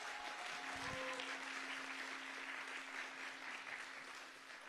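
Audience applauding, slowly dying down toward the end.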